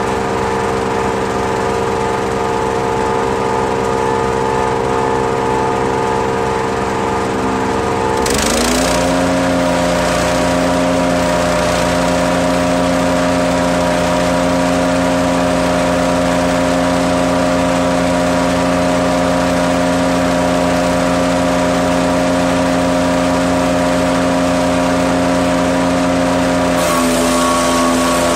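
Petrol engine of a Hecht 6642 wood chipper running steadily. About eight seconds in its note drops and settles at a new steady pitch, and shortly before the end it shifts again for a moment.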